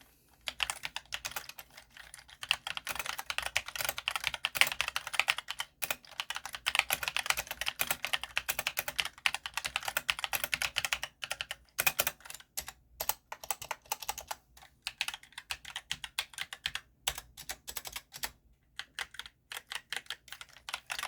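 Rapid typing on a mechanical keyboard with Outemu brown switches (tactile, non-clicky), a fast run of key clacks with a few short pauses.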